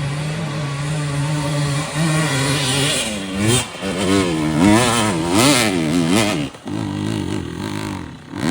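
Dirt bike engine running at a steady low speed, then revved up and down several times in quick succession from about three seconds in. It settles back to a steady note before one sharp rev at the very end.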